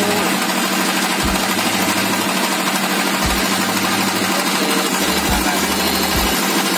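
A wooden boat's engine running steadily under way: a loud, even mechanical clatter with a constant low hum.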